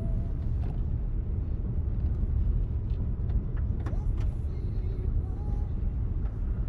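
Vehicle driving, heard from inside the cab: a steady low road and engine rumble, with a few sharp knocks or rattles about three and four seconds in.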